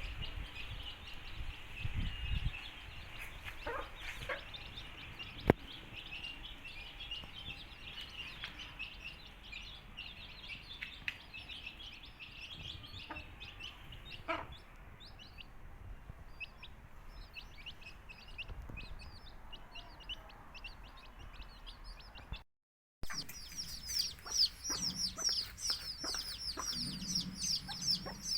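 Many country-chicken chicks peeping continuously in short, falling high-pitched cheeps, with a hen clucking low. After a brief break about three-quarters through, the peeping gets louder and denser.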